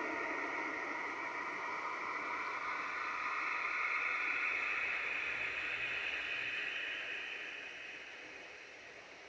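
Radio static: a steady hiss with a few faint tones drifting in it, fading down over the last two seconds.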